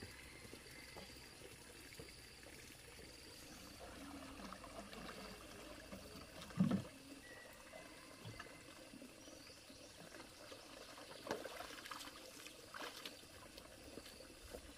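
Faint water trickling and pouring, with a single dull thump about halfway through and a few small knocks later on. A faint high chirp repeats in short dashes in the background.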